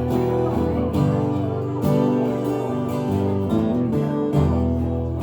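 Acoustic guitar played live, picked and strummed through a chord progression, with the chords changing every second or two.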